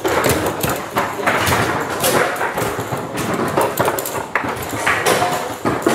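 Tecball table-football table in fast play: an irregular clatter of knocks and clacks as the ball is struck by the plastic men and the rods are jerked and spun.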